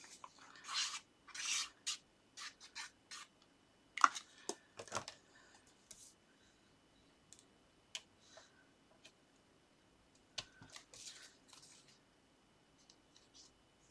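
Paper and card being handled on a desk: short, quiet scratchy rustles and rubbing, with a few light ticks, as a paper topper is positioned and pressed onto a card front. The rustling is busiest for the first few seconds, then thins out.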